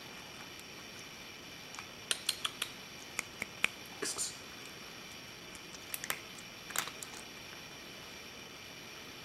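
Cat crunching dry kibble, with sharp crunches in two bursts: one about two to four seconds in and another around six to seven seconds in.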